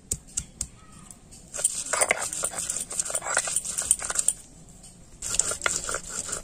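Stone roller grinding garlic, green chillies and ginger on a flat grinding stone (sil-batta): a few knocks as the cloves are crushed, then gritty scraping of stone on stone from about a second and a half in, easing off briefly shortly before the five-second mark and starting again.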